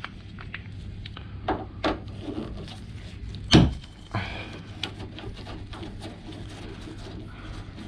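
Tool handling and the unscrewing of the door handle's T30 Torx fasteners: a few sharp knocks, the loudest about three and a half seconds in, followed by light irregular ticks and clicks.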